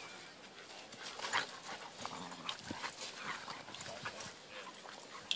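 Dogs play-wrestling on grass: short dog vocal sounds amid scuffling, with a sharp scuffle about a second in.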